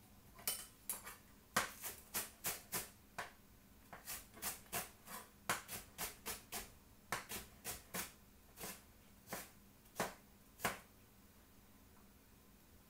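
Knife chopping spring onion on a chopping board: a run of sharp, uneven knocks, two or three a second, that stops near the end.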